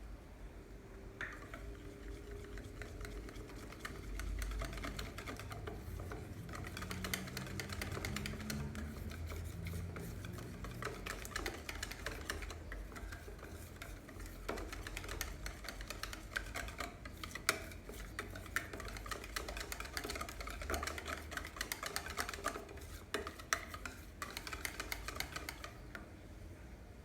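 Pancake batter being mixed by hand in a bowl: a utensil beating quickly and continuously, with a rapid, irregular clicking against the bowl that stops about a second before the end.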